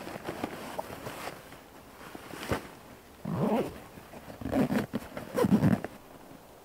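Nylon stuff sack rustling as it is pushed into a backpack, one sharp click, then three rasping pulls, each about half a second long, as a pack strap is cinched tight through its buckle.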